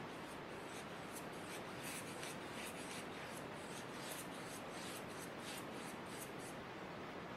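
Paintbrush swept over watercolor paper in short, quick, irregular strokes, a soft scratchy brushing over a steady hiss.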